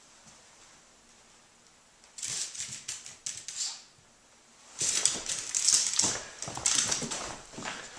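Small affenpinscher/Brussels griffon dog's claws clicking and scrabbling on tile and hardwood floor as it dashes about, in a short burst about two seconds in and a longer, louder run of quick clicks from about five seconds on.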